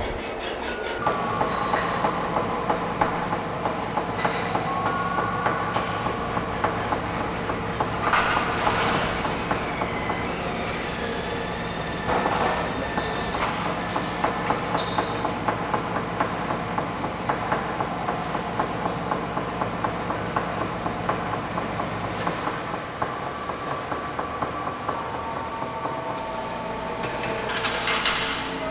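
A train running on rails: a rhythmic clatter of wheels two to three times a second, with drawn-out squealing tones that shift in pitch.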